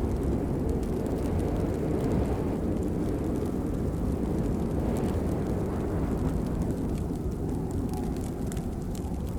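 Steady rain, a dense low rumbling wash with scattered sharper drop taps on top.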